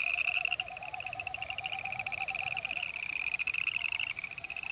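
Frogs calling in chorus: a high, rapid trill throughout, with a lower pulsing call beneath that fades out about three seconds in.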